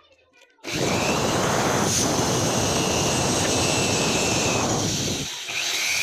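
Electric drill with a keyed chuck running as it bores small holes through a thin plastic bottle. It starts suddenly a little under a second in, runs steadily with a high whine, drops off briefly near the end and speeds straight back up.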